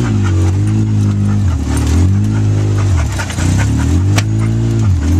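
Polaris RZR side-by-side's engine running under changing throttle, its pitch dipping and picking up again several times, with sharp knocks and rattles from the machine jolting over the rough trail, the loudest knock about four seconds in.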